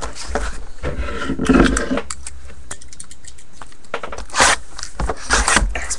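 Trading-card packaging and cards being handled and opened by hand: irregular scraping and crackling, with the loudest rustle about four seconds in, over a steady low hum.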